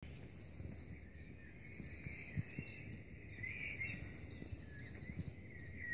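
Small songbirds singing, a run of quick trills and down-slurred chirps, over a low rumble of background noise; it all cuts off abruptly at the end.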